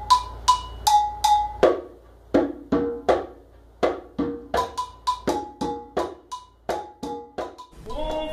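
Percussion music: a steady beat of struck drums, with a high ringing two-note strike alternating on top. Deeper drum hits join about two seconds in.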